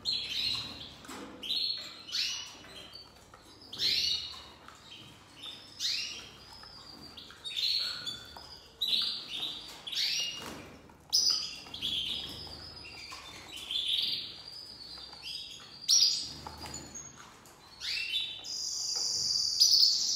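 Caged canaries chirping, short bright calls coming one after another, then a sustained high trill of song near the end.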